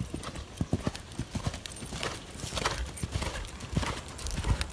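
Horse hooves striking a sand arena surface in a quick, uneven run of dull thuds as a ridden horse moves around the arena.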